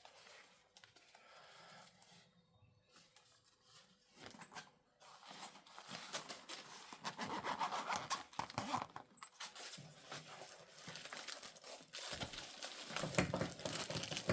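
Rustling, rubbing and scraping of a spotting scope's fabric carry case and its packaging being handled and opened, faint at first and louder from about five seconds in.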